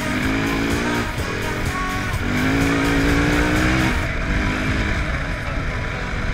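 Dirt bike engine accelerating hard through the gears: the pitch climbs, drops back at each upshift about once every one to two seconds, and climbs again.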